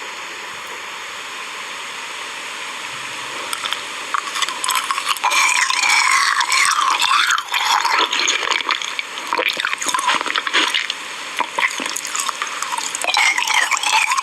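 Wet jelly squelching and slurping close to the microphone, irregular and sticky, after a few seconds of steady hiss.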